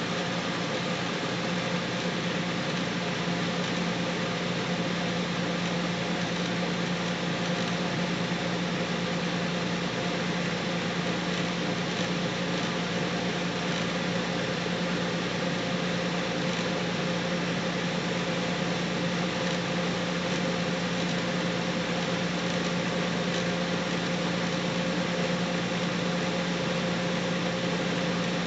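Steady machine hum with an even hiss and a low tone that holds unchanged throughout.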